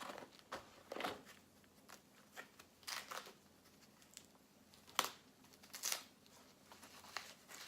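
Packaging and small accessories being handled during an unboxing: scattered soft rustles and crinkles, with a sharper click or tap about five seconds in.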